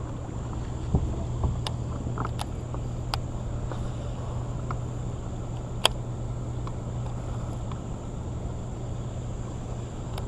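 Fishing gear being handled and cast, with scattered sharp clicks and taps, the loudest about six seconds in, over a steady low hum and a faint high steady insect drone.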